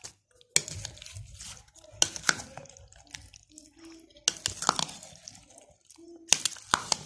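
A spoon stirring chunks of fruit through a thick cream-and-yogurt dressing in a bowl: wet squelching and slopping, broken by several sharp knocks of the spoon against the bowl, about one every second or two.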